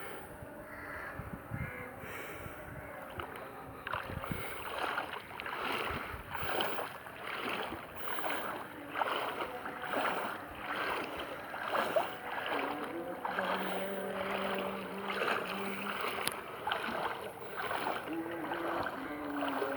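Footsteps wading through knee-deep floodwater, a regular splash and slosh at about one stride a second once the walking gets going a few seconds in.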